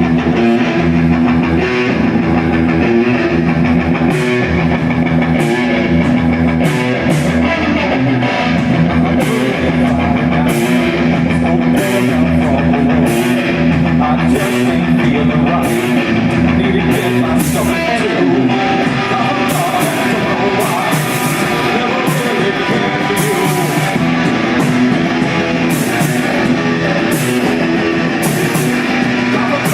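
A rock band playing a song live at full volume, led by guitar over bass, with sharp high-end hits recurring throughout.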